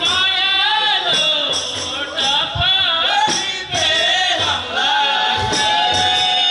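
Magar kauda folk song: men's voices singing a wavering melody over the steady beat of hand frame drums with jingles.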